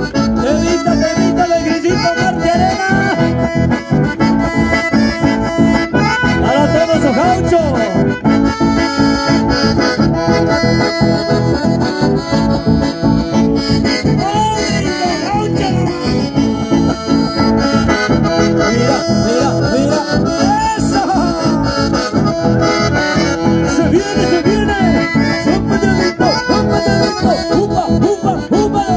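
Chamamé music led by an accordion, with a steady rhythmic beat underneath.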